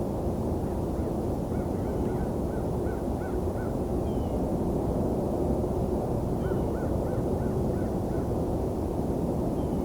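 A wild bird calling in two quick series of short repeated notes, over a steady low rumble of outdoor background noise.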